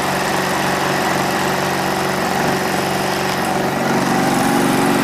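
Honda EU2200i inverter generator's single-cylinder four-stroke engine running steadily just after starting, its exhaust led through an extension pipe into a plastic bucket, which adds its own sound. It picks up slightly in speed and loudness about four seconds in.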